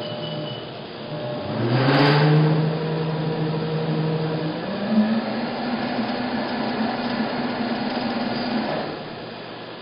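Computer-controlled induction motor driving a synchronous generator, its hum rising in pitch in two steps as its speed is raised, then falling away near the end. A sharp click about two seconds in.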